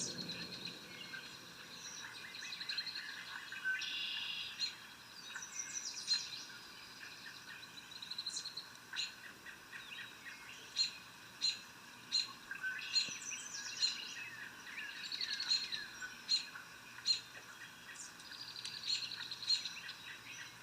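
Forest swamp ambience of several birds calling and singing together: overlapping trills, chirps and short sharp notes, the sharp calls repeating about once a second in the second half.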